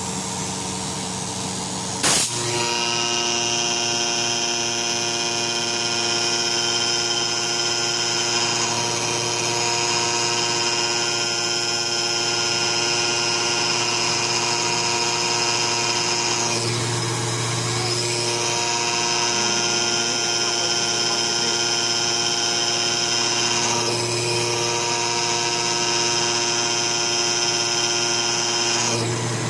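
Spray-foam machine's pump motor running with a steady, many-toned whine and hum. A sharp click comes about two seconds in, after which it runs louder, and a few times its upper tones drop briefly while the low hum swells. The owner blames this snoring, labouring sound on a clogged ISO (isocyanate) material filter.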